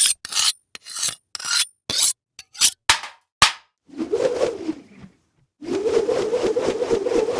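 Metal scraping sound effect: a quick run of about ten short rasping strokes, then two longer grinding scrapes with a humming tone under them, the second lasting about three seconds.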